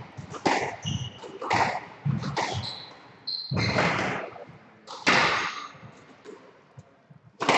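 Squash rally: the ball struck by rackets and smacking off the court walls, a series of sharp cracks about a second apart, echoing in the court. Short high squeaks of shoes on the wooden floor come between shots.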